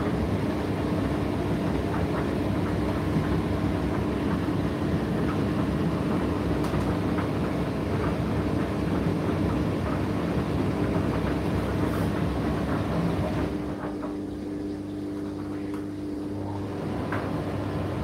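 Indesit IDC8T3 condenser tumble dryer running mid-cycle: a steady motor hum with a constant tone, the drum turning with light scattered clicks. About 13 seconds in the rushing tumble noise drops away, leaving the hum, and it rises a little again near the end.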